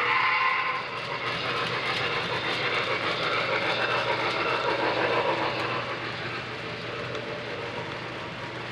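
HO scale model freight train rolling along the track, its wheels rumbling on the rails. The sound grows fainter from about six seconds in.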